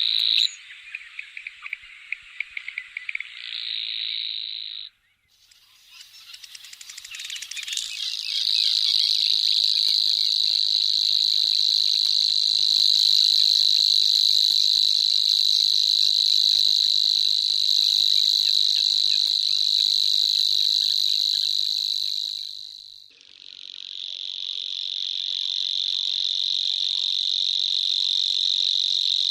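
Grasshopper warblers (Locustella) singing: a pulsing trill for the first few seconds, then after a short gap a long, unbroken, high-pitched insect-like reeling that stops abruptly about 23 seconds in and starts again at once.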